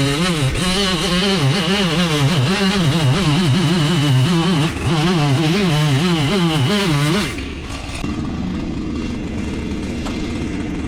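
Chainsaw cutting through wood, its engine pitch wavering up and down under load. About seven seconds in the cutting revs drop off sharply, leaving a lower, steadier engine hum.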